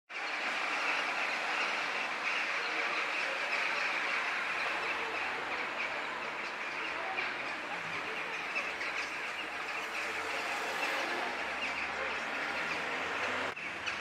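A large flock of birds calling together in flight at dusk: a dense, unbroken chatter of many overlapping short calls.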